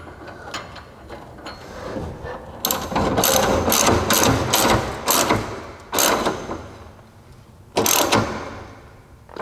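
Hand ratchet wrench clicking as a bolt is run in, refastening a truck-bed bump stop over steel stiffener plates. A few quiet clicks at first, then from about three seconds in a run of rapid ratcheting, followed by two short bursts.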